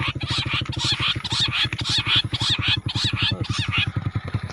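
Bush quail calls: a quick series of high, chirping whistles, about six or seven a second, that die away near the end, over a low rapid pulsing of about a dozen beats a second.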